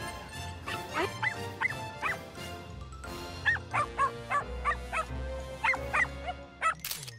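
A miniature pinscher barking again and again in short, high barks, one run of about four early and a longer run of about ten after a brief pause, over background music.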